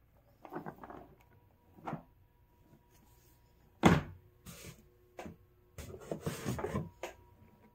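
Cardboard jigsaw puzzle boxes being handled. Cardboard rustles, then a thump about two seconds in, then a sharp knock about four seconds in as a puzzle box is set down on a stack of other boxes. Scraping and rustling of cardboard follow near the end as a hand reaches into a cardboard shipping carton.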